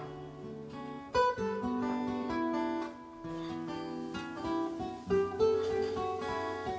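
Acoustic guitar playing an instrumental passage, plucked and strummed notes moving through chords.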